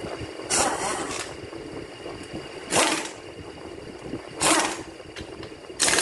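A pneumatic tool hisses in four short bursts, each under a second, while bolts on a transmission support bracket are undone. A steady workshop hum runs underneath.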